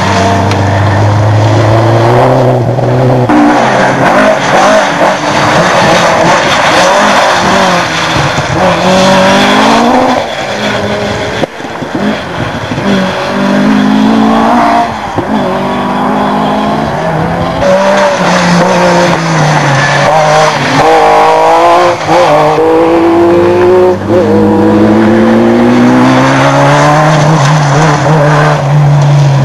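Rally car engines at full throttle on a loose gravel stage, revving hard with the pitch climbing and dropping again and again through the gear changes. The sound dips briefly about ten seconds in, then another car's engine builds.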